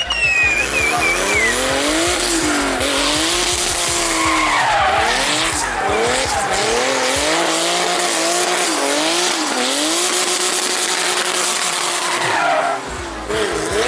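A drift car's engine revving hard, its pitch rising and falling again and again as the throttle is worked, over a continuous hiss of rear tyres spinning and sliding on asphalt. The revs drop briefly about a second before the end, then pick up again.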